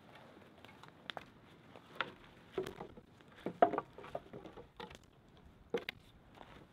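Split logs being set down one after another beside a campfire: several wooden knocks and clunks about a second apart, the loudest about three and a half seconds in.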